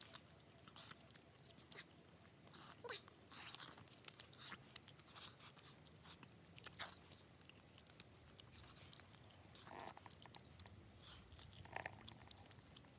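A person chewing and biting into spiced grilled duck: faint, irregular mouth clicks, smacks and crunches as meat is bitten and torn from the bone.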